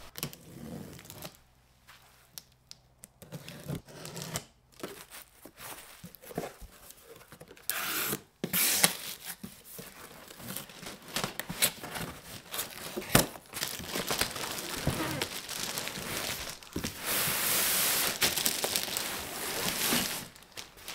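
A cardboard box being opened by hand, its flaps scraping and tearing, then clear plastic wrapping crinkling as a packed item is handled. The rustling turns dense and loud near the end.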